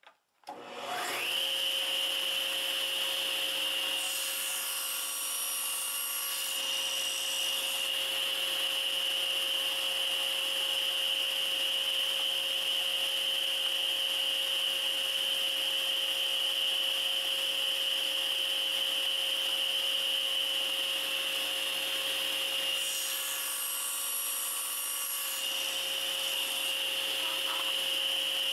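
Table saw switched on, its motor whine rising to a steady pitch within about a second and then running steadily. Twice, about 4 seconds and about 23 seconds in, the blade cuts through a small wooden workpiece held on a sled, each cut adding a rasping hiss for about two seconds.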